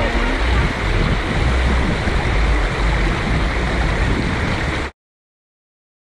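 Shallow river stream rushing and gurgling over rocks, a steady dense wash of water with a deep rumble. It cuts off suddenly about five seconds in.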